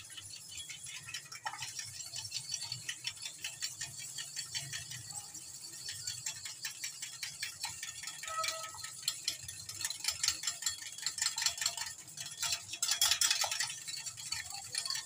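Metal hand whisk beating an egg in a glass bowl: a fast, continuous clinking and rattling of the wires against the glass. It is loudest about two seconds before the end as the egg is whipped to a froth.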